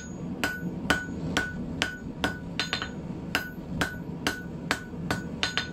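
Blacksmith's hand hammer striking a red-hot 10 mm round steel bar on the anvil at about two blows a second, each with a short metallic ring, as the end is forged into an eight-sided taper.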